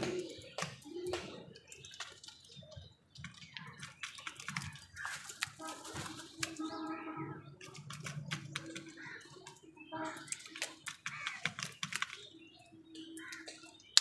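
House crows pecking at wet food in a plastic bowl and at grain on concrete: a scatter of quick, sharp taps and clicks.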